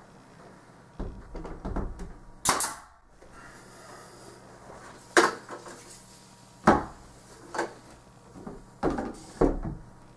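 Pneumatic brad nailer firing about six sharp shots, a second or two apart, tacking the top door casing into place, with a few duller thumps of the trim being pressed to the wall.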